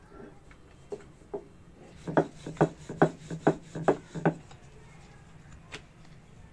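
Wooden rolling pin rolling flatbread dough on a marble board: a quick run of about eight knocks and rubs at roughly four a second as the pin is worked back and forth, starting about two seconds in, with a single tap later.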